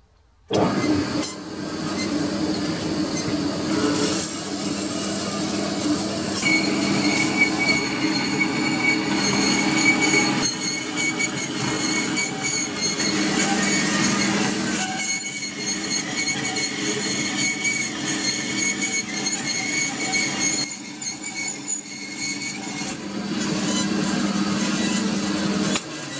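Vertical bandsaw cutting through thick steel plate, coming in suddenly about half a second in. A steady running hum sits under a high, thin squeal from the blade in the steel, which comes and goes.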